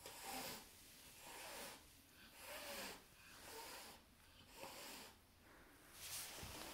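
A cat hissing, faint and repeated: about six short hisses, roughly a second apart, as two cats meet at a pet carrier.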